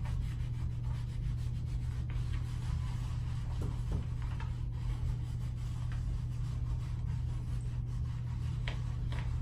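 Tanning mitt rubbing fake tan onto a bare leg in repeated strokes, over a steady low hum.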